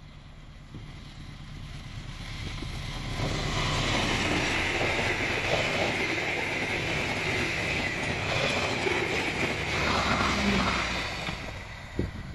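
Diesel-hauled passenger train passing close at speed: the locomotive's low engine rumble as it approaches, growing into a loud rush and ringing of the coaches' steel wheels on the rails, then fading near the end as the train moves away.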